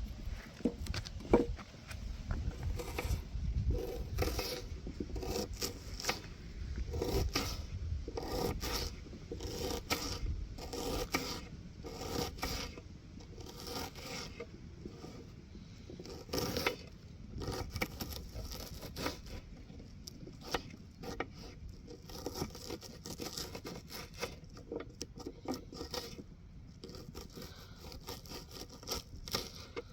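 Irregular scraping and rubbing, with scattered short knocks and clicks, as of hands working a rough material.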